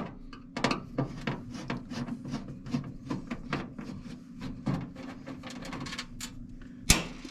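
Irregular small clicks and scrapes of a screw being worked out of a metal range hood housing, with one sharp knock near the end.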